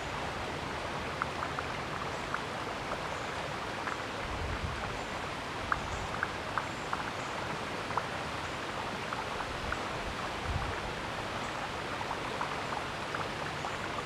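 Steady outdoor background hiss with many faint, irregular short ticks scattered through it.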